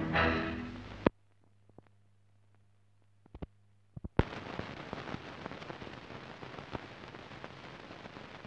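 Music fading out and cut off by a sharp click about a second in, then a low hum with a few scattered pops. About four seconds in, a steady crackling hiss begins: the surface noise of an old optical film soundtrack.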